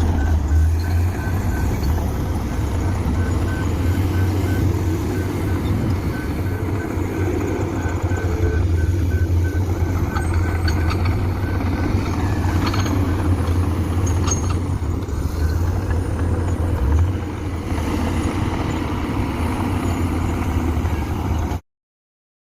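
Komatsu PC200 excavator's six-cylinder diesel engine running steadily with a deep drone, while a machine's warning alarm beeps about twice a second through the first half and then stops. The sound cuts off suddenly near the end.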